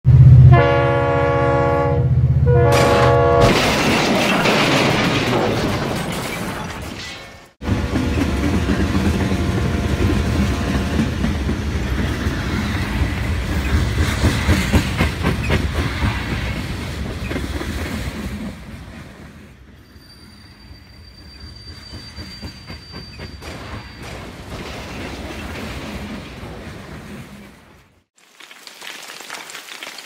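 Added train sound effects: a train horn blowing for about three seconds at the start, then the clatter of a rolling train, broken by a sudden cut about seven and a half seconds in and running on, quieter after about eighteen seconds.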